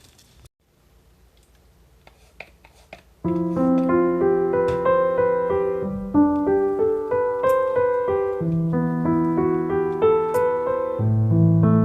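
Gentle piano background music begins about three seconds in, a melody over low bass notes, after a few faint clicks.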